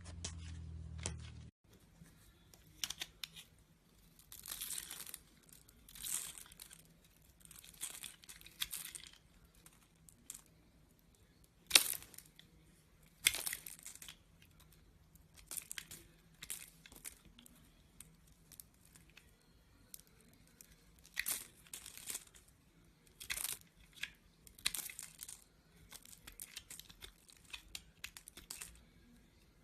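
Slime being squeezed and stretched by hand: a series of short crackling squishes, one every second or two, the loudest about twelve seconds in.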